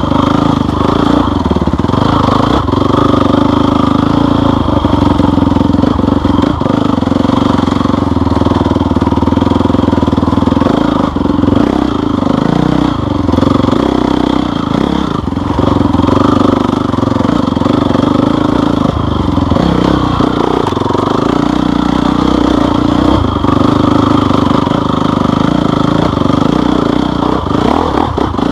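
An off-road vehicle's engine running steadily along a trail, its pitch wavering up and down as the throttle changes, with scattered short knocks.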